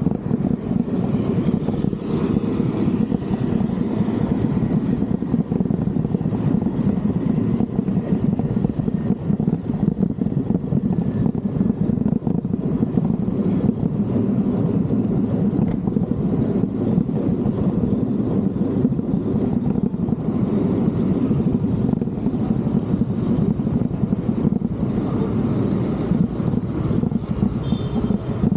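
Steady wind rumble on an action camera's microphone while cycling on a city road, mixed with road noise. A brief high ringing tone comes near the end.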